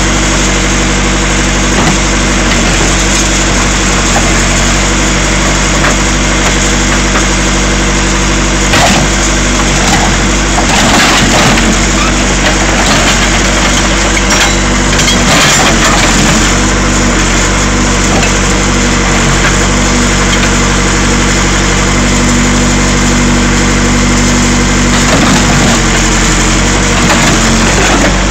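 A Case 580 Super E backhoe's diesel engine running steadily under hydraulic load. Through the middle, and again near the end, there are cracks and crunches as the bucket crushes a sheet-metal truck box.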